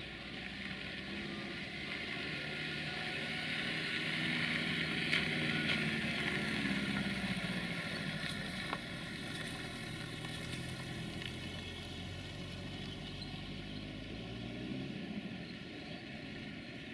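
Motor vehicle engine running with a steady rumble and hiss. It swells to its loudest about five seconds in, then fades back.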